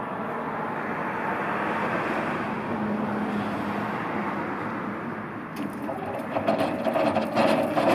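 Linde electric double stacker's forks lowering with a steady hydraulic hiss. About five and a half seconds in, the stacker starts to drive and rattles over brick paving.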